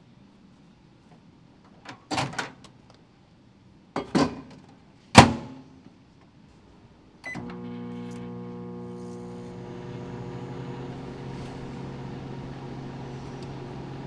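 GE countertop microwave oven: three sharp clunks of its door being worked, the last the loudest, then a short beep as it is started and the steady hum of it running.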